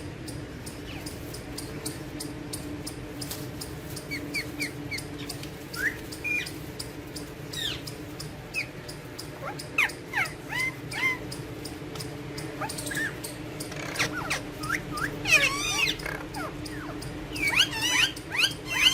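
Alexandrine parakeets calling: scattered short whistled chirps and rising or falling glides, becoming busier, with louder harsh calls in the last few seconds, over a steady low hum.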